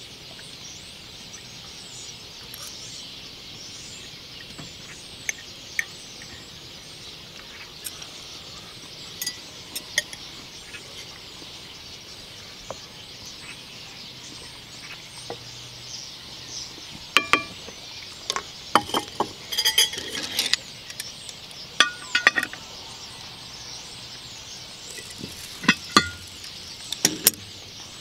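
Scattered clinks of a fork on an enamelware bowl and clanks of cast-iron cookware, busiest in the second half, with a few sharp ringing knocks near the end. Underneath, a steady high outdoor hiss with faint bird chirps.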